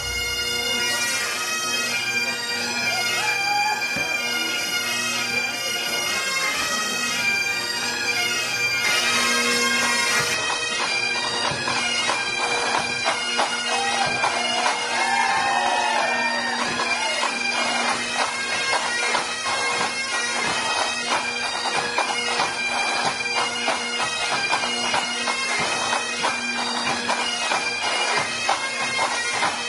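A pipe band's Great Highland bagpipes playing a dance tune over their steady drones. About ten seconds in the sound turns duller.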